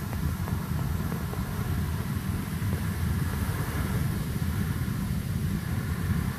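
Soda Springs geyser's carbon-dioxide-driven water jet erupting: a steady rumbling rush of water with an even hiss over it.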